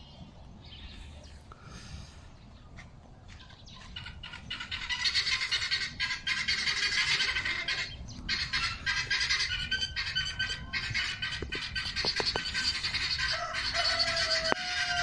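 A flock of small birds chirping and chattering, many calls overlapping; it swells up about four seconds in and stays dense, with a single longer steady call near the end.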